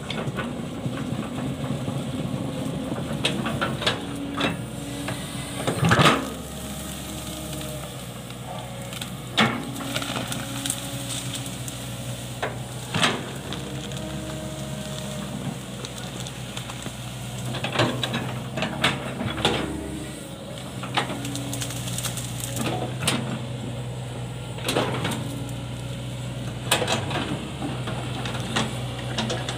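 Hitachi hydraulic excavator's diesel engine running steadily, its note shifting as the bucket works through brush, roots and mud. About a dozen sharp cracks and knocks cut through the engine sound, the loudest about six seconds in.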